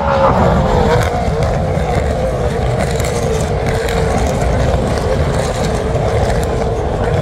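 V8 Supercars race cars going past at full speed: one car passes close at the start, its engine note dropping in pitch as it goes by, then the pack follows with a steady, continuous V8 drone.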